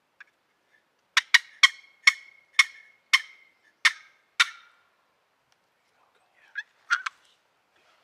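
Wooden turkey box call yelping: a run of about eight sharp yelps, then two more short notes near the end. It imitates a hen turkey to call in a gobbler.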